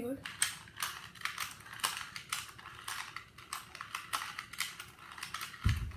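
Plastic puzzle cube, a ShengShou 2x2x2, being turned and handled: irregular light clicks and clacks of its layers, a few a second.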